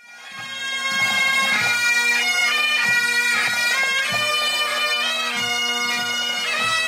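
Pipe band playing: bagpipes sound a melody over their steady drones, with drumbeats underneath. The music fades in over the first second.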